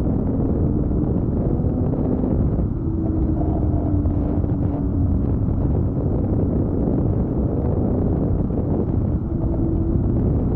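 2012 Ski-Doo MXZ 800 E-TEC snowmobile's two-stroke twin running under way, a dense low rumble whose engine tone drifts up and down with the throttle. Wind noise on the microphone over it.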